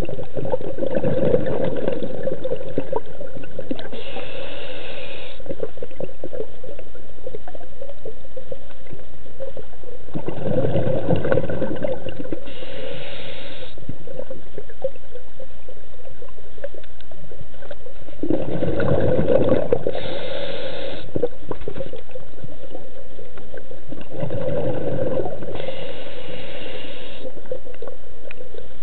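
Scuba diver breathing through a regulator, heard underwater: four bursts of exhaled bubbles gurgling, each followed by a short hiss of the regulator, in a slow repeating cycle.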